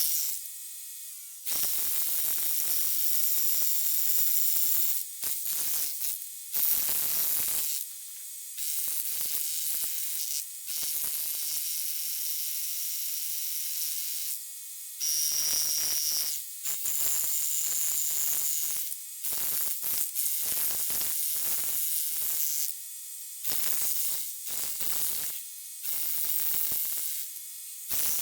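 Power-tool noise from drilling and breaking up a concrete pier, a rotary hammer drill and a jackhammer, in a rapid string of short buzzing clips a second or two long with abrupt cuts between them.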